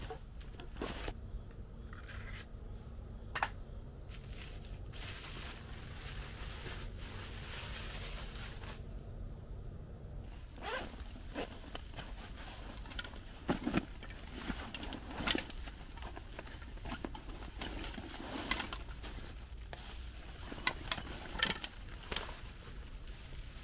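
Irregular rustling, scraping and clicking handling noises, growing busier about halfway through, over a faint steady hum during the first half.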